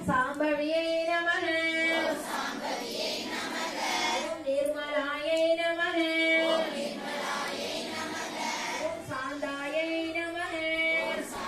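A high woman's voice singing a devotional song in long held notes, three sung phrases with short pauses between them.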